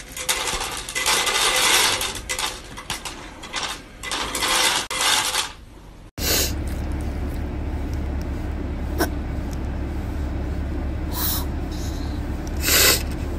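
Automatic pet feeder dispensing dry kibble: pellets clatter and rattle into the tray in uneven spurts for about five seconds. After a sudden cut comes a steady low rumble of a car cabin, with a few short bursts of noise.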